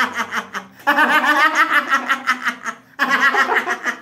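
A man laughing heartily and loudly: long runs of rapid, high-pitched laughing pulses, broken by a breath about a second in and another near three seconds.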